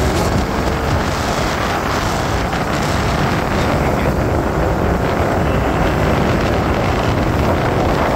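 Steady wind rush on the microphone mixed with engine and road noise from a vehicle moving along a street.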